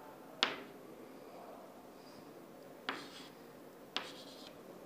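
Chalk writing on a chalkboard: three sharp taps as the chalk strikes the board, each followed by a short scratchy stroke.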